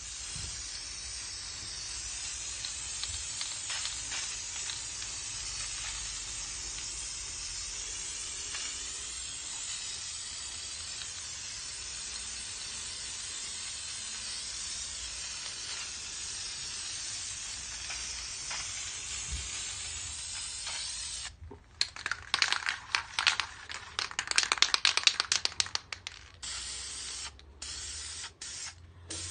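Aerosol spray can hissing steadily as primer is sprayed onto an alloy wheel, cutting off sharply after about 21 seconds. Then a few seconds of loud, fast rattling clicks, the loudest sound here, as the can is shaken and its mixing ball knocks about, followed by a few scattered clicks.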